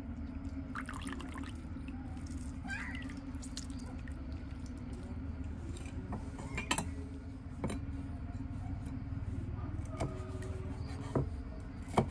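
Food being prepared: scattered small clicks and knocks over a steady low rumble, louder taps at about seven seconds and again near the end.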